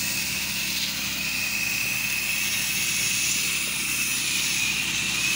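Pressure washer running steadily, its engine drone under the hiss of the wand's fan spray hitting concrete, with a steady high-pitched whine on top. The spray is laying down a chemical pre-treat drawn through the line.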